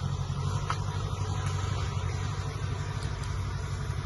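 Steady low engine hum, as of a motor idling, with a few faint clicks.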